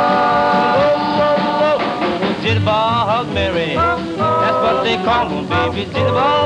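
Doo-wop vocal group singing wordless harmony with a band behind it. A held chord for about the first two seconds gives way to swooping vocal lines over a pulsing bass beat.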